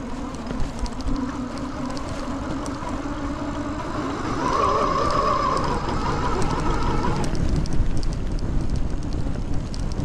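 Fat-tire electric bike with dual Bafang hub motors riding along: a steady low hum from the motors and knobby tyres over a rough rush of road and wind noise. About four seconds in it rises to a louder, higher whine, which drops away about three seconds later.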